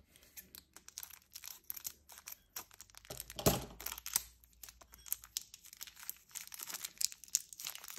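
Clear plastic wrapper crinkling and tearing as it is picked open from a small eraser: a steady run of sharp crackles, with one louder crackle about three and a half seconds in.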